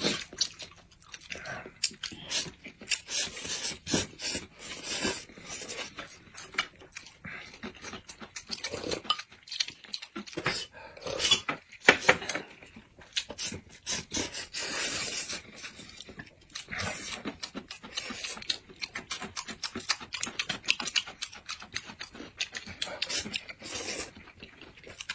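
Noodles being slurped and chewed in big mouthfuls, wet sucking and smacking in irregular bursts, with chopsticks tapping and scraping on the ceramic plates.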